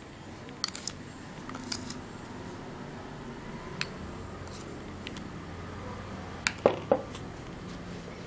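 Sharp light clicks and taps of a spoon and glass bowl against a stainless steel plate as semolina is added to flour: two close together near the start, one around the middle, and a small cluster about two-thirds of the way in. A faint steady hum runs underneath.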